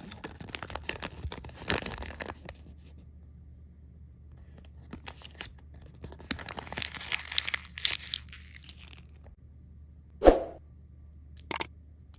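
Plastic candy wrappers being torn open and crinkled in two spells of crackling, followed by a single short thump about ten seconds in and a couple of sharp clicks near the end.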